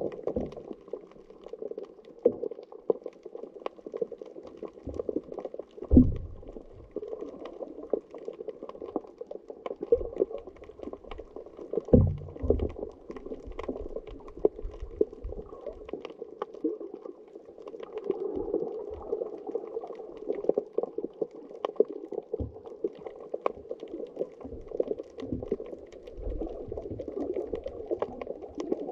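Muffled underwater noise as heard by a camera in the sea: a steady watery wash with scattered faint clicks and sudden low thumps, the strongest about six and twelve seconds in.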